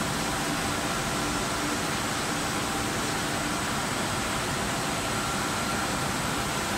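Nordmeccanica Super Combi 3000 laminator running with film moving through its rollers: a steady mechanical hum and hiss at an even level, with faint steady tones.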